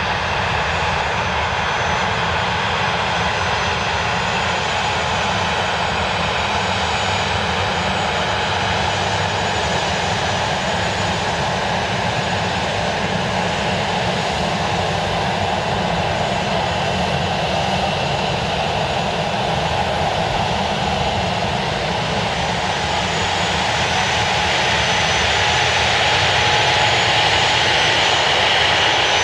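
The Dassault Falcon 8X's three Pratt & Whitney Canada PW307D turbofans running at low taxi power: a steady jet whine with thin high tones. It grows a little louder over the last few seconds.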